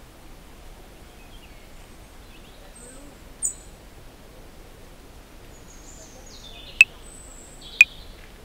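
Outdoor ambience with a steady background hiss and a few high bird chirps. About seven seconds in, a 60 bpm metronome starts clicking, two sharp clicks a second apart.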